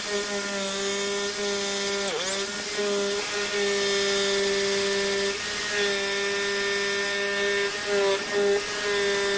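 Bosch GST 680 jigsaw running steadily while cutting through a 50 mm thick plank, its motor pitch dipping briefly about two seconds in as the blade loads up.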